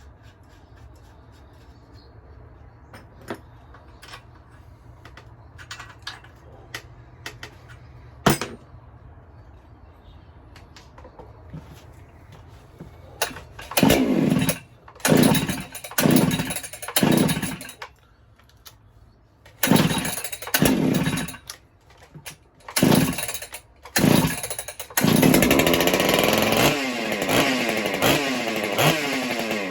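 Ported Husqvarna 395XP two-stroke chainsaw being pull-started: after some light clicks and knocks of handling, it fires in several short bursts that each die away, then catches about 25 seconds in and keeps running unevenly. The owner suspects a carburettor fault, a plugged low-speed jet, or an ignition problem.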